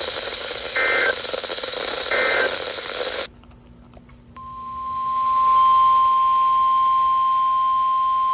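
Two short buzzy digital data bursts, the end-of-message code of an Emergency Alert System broadcast, over weather-radio hiss. After a brief near-quiet gap, a steady single-pitched NOAA Weather Radio warning alarm tone starts about four seconds in and holds, announcing the next warning.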